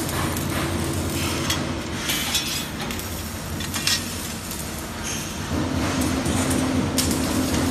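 Robotic arc welding: a welding arc crackling and sizzling over a steady machine hum, with scattered sharp metallic clicks. The hum's tone drops slightly about two-thirds of the way through.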